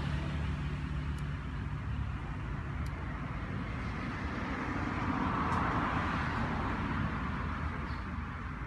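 Steady low rumble of motor traffic, swelling and fading again around the middle, with a few faint ticks.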